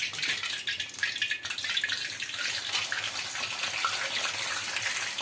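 Hot oil sizzling with many small pops in a black iron karahi as a steamed, marinated lamb leg is shallow-fried.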